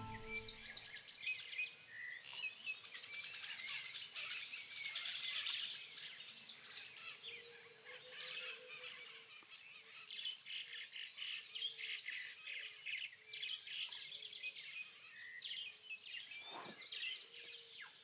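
Rainforest ambience: many small birds chirping and trilling over a steady high insect hum. A brief whoosh near the end dips low in pitch and rises again.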